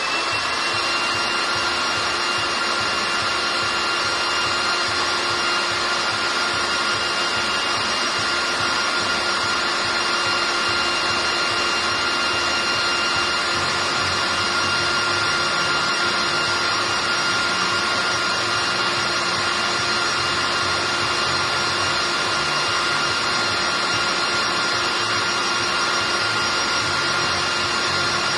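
Truck gearbox spun up by a motor and running steadily with a high whine, winding down near the end.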